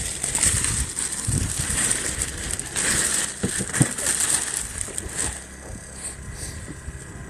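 Thin plastic sheeting rustling and crinkling in irregular bursts as it is pulled and handled, louder for the first five seconds or so, then quieter.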